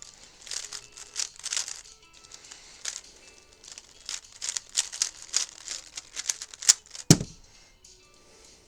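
3x3 speedcube being turned quickly, a rapid run of plastic clicks and rattles from its layers, with a single sharp knock about seven seconds in.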